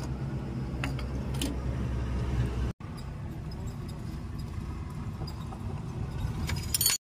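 Steady low engine hum, with a few faint metallic clicks and a brief metallic jingle near the end.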